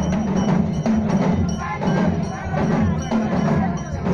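Music with a steady percussion beat and voices singing along.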